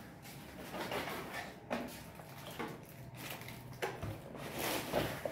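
The cardboard box and plastic packaging of a hair trimmer being opened and handled: scattered scrapes, rustles and a few light knocks.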